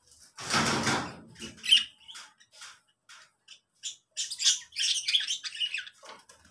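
Lovebirds squawking and chirping in short, high calls that crowd into a quick run of squawks from about four seconds in. A loud rustling burst, under a second long, comes about half a second in.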